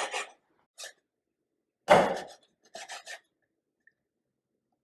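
A knife chopping raw chicken into pieces in a few irregular strokes: a single chop about two seconds in, then a quick run of three about a second later.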